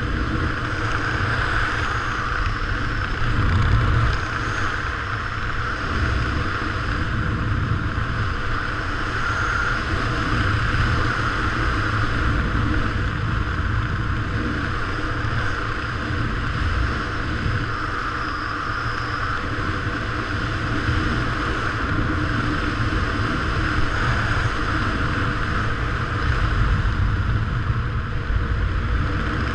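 Steady wind noise buffeting the microphone of a camera worn by a skydiver flying under an open parachute canopy: a deep rumble with a constant hiss over it.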